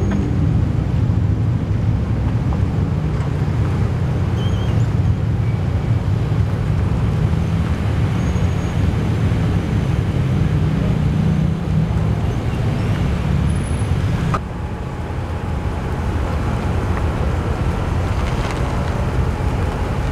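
Steady low rumble of running vehicle engines at the roadside, with no distinct events; the sound drops slightly and changes about fourteen seconds in.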